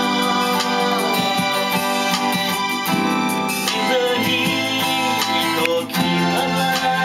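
Acoustic guitar strummed along with an electronic keyboard playing sustained chords, with a man singing along in places.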